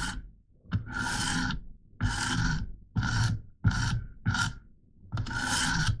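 Coarse 100-grit diamond stone on a KME guided sharpener drawn lightly along a steel knife edge in about six separate rasping strokes, the last one the longest. These are gentle burr-removal passes on the blade's second side before moving to the next stone.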